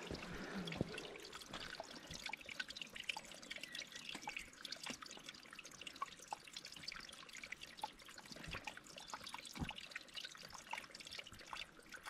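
Small mountain spring trickling faintly, with many small irregular drips.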